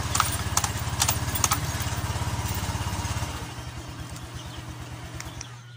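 Honda Click 125i scooter's single-cylinder engine idling steadily, with a few sharp clicks in the first second and a half. About three seconds in, the engine is switched off and its beats slow and fade away.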